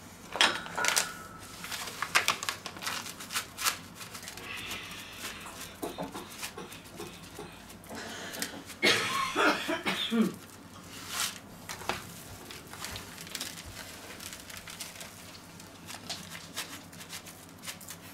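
Hands squishing and turning raw pork pieces in a stainless steel tray, with small clicks and rustles. Dry onion soup mix is shaken from its packet over the meat. There is a short voice-like sound about nine seconds in.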